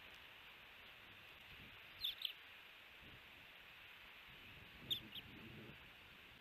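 Osprey chirping: a quick pair of high, sharp chirps about two seconds in and another pair about five seconds in, with a soft low rustle around the second pair.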